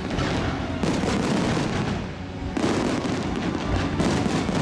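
Festival fireworks salute bursting overhead: three loud bursts, about a second in, a little past halfway, and near the end, each ringing on in a dense rumble until the next.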